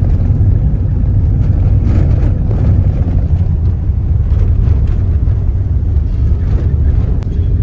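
Loud, steady low rumble of a car on the move: road and wind noise.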